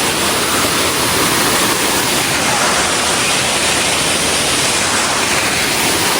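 Waterfall's steady rush of falling water, an even noise without breaks.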